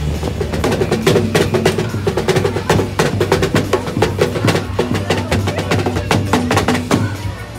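Drum-led music: rapid, sharp stick strikes in a fast rhythm over a steady low bass, stopping near the end.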